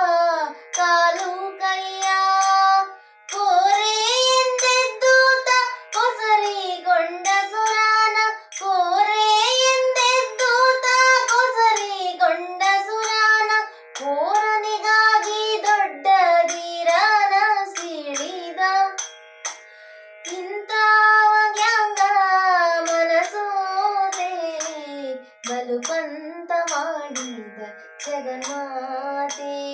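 A girl singing a Kannada devotional song solo, in a Carnatic style, with long held notes and sliding ornaments and short breath pauses, over a steady unchanging drone.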